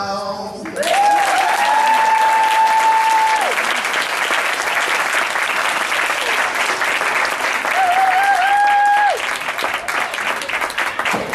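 Audience applause and cheering break out about a second in. Over it come two long held whoops: one lasting about three seconds, and a shorter one about eight seconds in.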